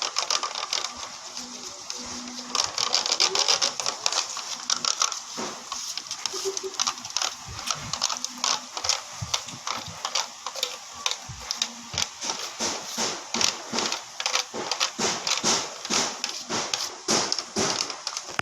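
Slime mix of glue, water and Ariel detergent being stirred in a plastic box: fast, irregular sticky clicks and scrapes.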